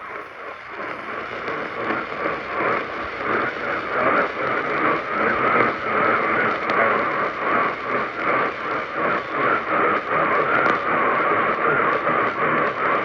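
Crackling radio static from a receiver tuned to a weak or empty signal. It swells over the first few seconds, then holds steady.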